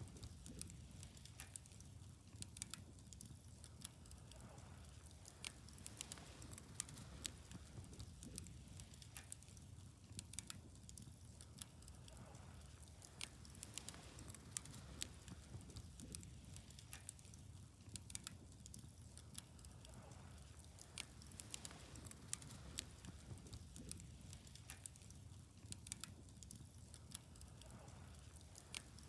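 Wood fire burning with irregular crackles and small pops over a faint low rumble.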